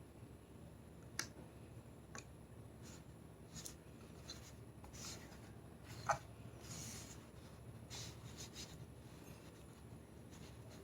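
Faint, sparse clicks and soft rubbing swishes, as of small objects being handled; the loudest click comes just after six seconds.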